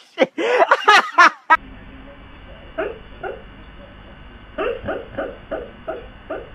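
A person's loud cries, then a husky lying asleep on a couch makes short, muffled woofs and yips in its sleep: two single ones, then a quick run of about three a second near the end.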